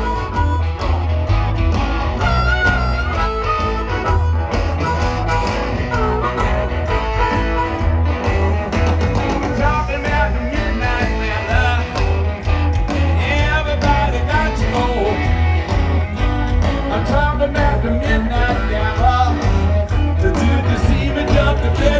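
Live blues-rock band playing loud, with electric guitar, heavy bass and a man singing, heard from far back in a stadium crowd.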